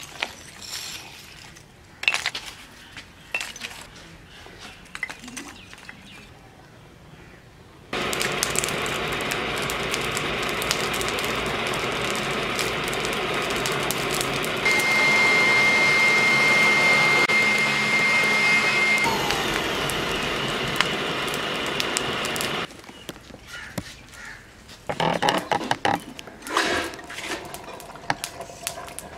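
A small electric air blower forcing air into a charcoal forge fire, running steadily for about fifteen seconds from roughly a third of the way in, with a thin high whine over its middle part. Before and after it come scattered clinks and knocks of charcoal lumps and metal being handled.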